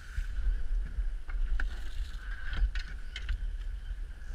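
Wind rumbling on the microphone in an open fishing boat, with a steady high hum underneath. A handful of sharp clicks and knocks come from the heavy snagging reels being cranked and from gear against the boat.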